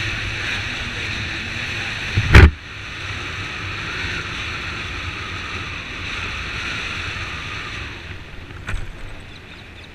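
Motorcycle riding along at road speed, heard mostly as wind rushing over the camera microphone with engine and tyre rumble underneath. A sharp, loud thump comes about two and a half seconds in, and a smaller one near the end as the bike goes over a speed breaker.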